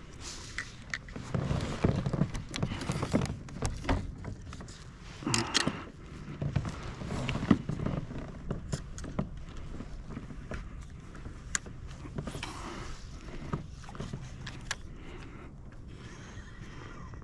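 Fishing gear being handled aboard a kayak: rustling with scattered clicks and knocks, busiest in the first half and then sparser ticks.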